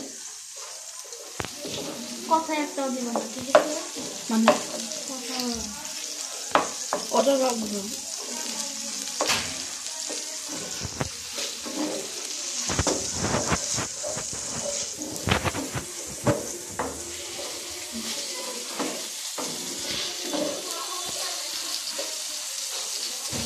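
Marinated chicken pieces frying in hot oil in a frying pan, sizzling steadily, while a metal spatula scrapes and taps against the pan as the pieces are stirred and turned.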